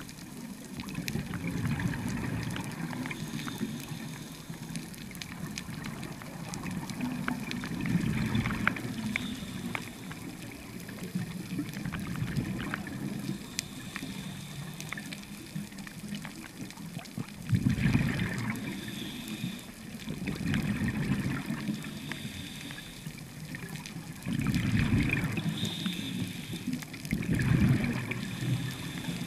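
Scuba regulator exhaust heard underwater: exhaled bubbles gurgling out in surges every few seconds over a steady watery hiss.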